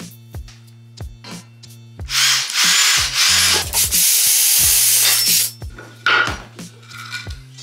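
Metabo cordless drill boring into a steel box-section tube, running loud for about three seconds from about two seconds in. A music track with a steady beat plays throughout.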